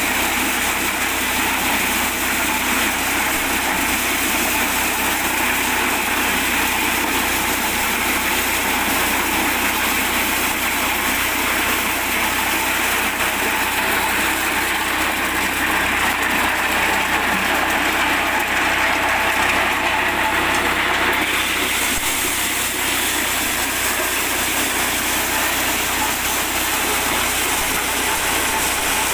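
Mini corn sheller driven by an 8 hp petrol engine, running steadily. Its upper sound shifts slightly about three-quarters of the way through.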